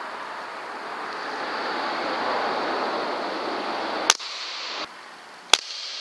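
Two sharp single cracks of a PCP air rifle firing, about four and five and a half seconds in. Before them a steady rushing noise swells, then cuts off abruptly just before five seconds.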